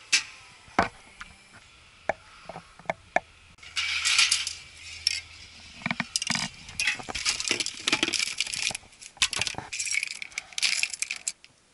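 Metal aerosol spray cans clinking against each other and the wire display rack as they are picked out: several sharp separate clinks in the first few seconds, then longer bursts of rattling and clinking.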